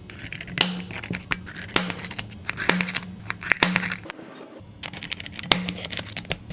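Cracked iPhone 16 back glass being pried and scraped off: irregular sharp clicks and crackles as tool and glass fragments snap and scrape.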